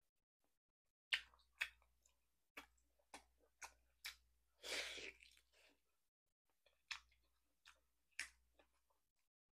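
Close-up eating sounds of a person gnawing braised beef off the bone and chewing: a series of sharp wet smacks and clicks at uneven intervals. About halfway through comes one longer, noisier mouth sound.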